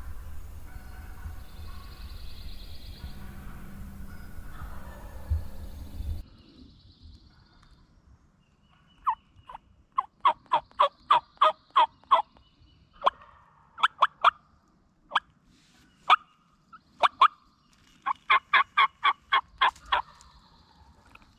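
Music for about the first six seconds, cutting off abruptly. Then a wild turkey gobbler gobbles repeatedly, about a dozen loud rattling gobbles spread between about nine and twenty seconds in.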